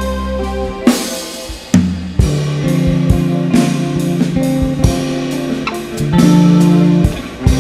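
Instrumental jazz-rock trio playing: guitar, bass and drum kit, with held bass notes under steady drum and cymbal hits.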